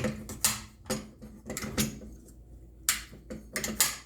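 FCI MS-2 fire alarm pull station being handled and worked, its metal handle and mechanism giving a series of sharp clicks and clacks.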